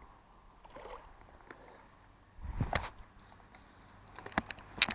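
A hooked carp splashing at the surface as it is drawn to the landing net, with a brief splash about halfway through and a few sharp knocks from the net and tackle near the end.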